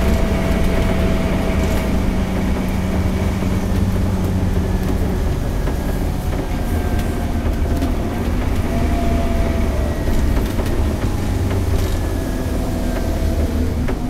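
Scania K230UB bus's DC9 five-cylinder diesel engine and ZF Ecomat automatic gearbox running as the bus drives along, heard from inside the saloon. A steady low rumble with thin whines that drift slightly down in pitch.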